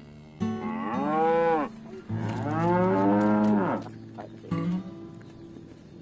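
Cattle mooing: two long moos, each rising and then falling in pitch, the first about half a second in and the second, longer one starting about two seconds in, followed by a brief low call about four and a half seconds in.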